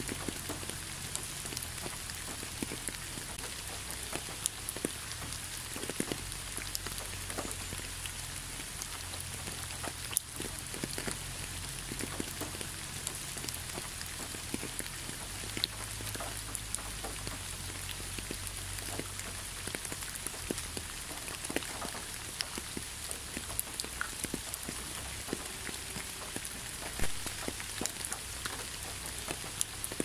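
Steady rain falling: a constant hiss with many scattered, individual drop hits standing out from it.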